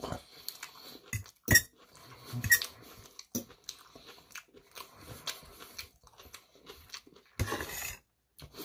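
A metal fork clinking and scraping against a metal bowl of food, with chewing between the clicks. The loudest is a sharp clink with a short ring about a second and a half in.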